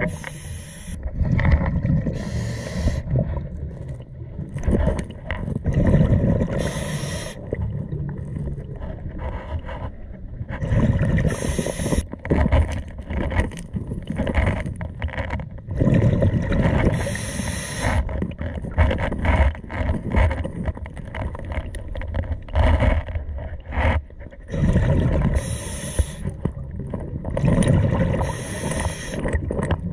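Scuba diver breathing through a regulator underwater: short hissing inhalations and low bubbling exhalations, a breath every few seconds.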